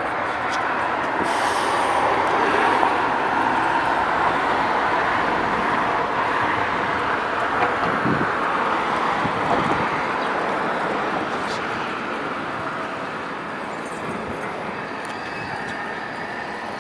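Steady rushing noise of passing vehicle traffic, slowly fading in the second half.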